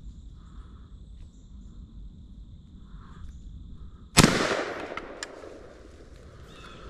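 A single-shot lever-action Ithaca .410 shotgun fires once about four seconds in: one sharp, loud report whose echo dies away over a second or so. A short sharp click follows about a second later.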